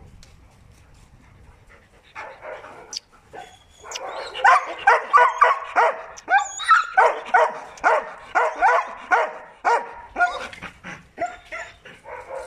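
Dog barking repeatedly: a few barks about two seconds in, then a fast run of about three barks a second that thins out near the end.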